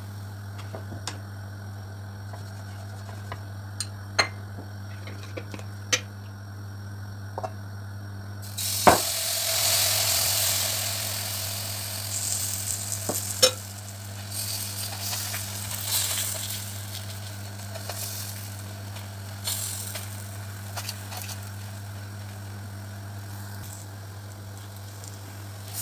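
Gözleme batter poured into a hot oiled non-stick frying pan, sizzling loudly from about nine seconds in and slowly dying down, with scattered taps of the spatula on the pan. Before that come a few light clicks and taps over a steady low hum.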